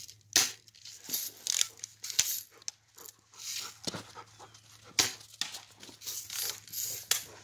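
A dog panting and moving about in crunching snow, over a string of short sharp clicks and snaps, about one or two a second.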